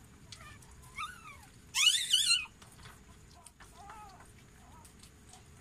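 Newborn puppy crying in several short, high-pitched squeals while the mother dog licks it. The loudest is a wavering squeal of just under a second, about two seconds in.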